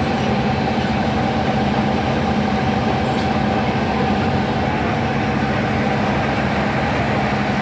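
Heavy engine running steadily at constant speed: a low hum with a steady tone above it that does not change.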